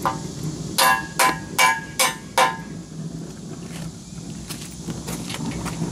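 Five ringing metal-on-metal clinks, about two a second, starting about a second in, as bolts are fitted into a steel bumper's mounting bracket. A low steady hum runs underneath.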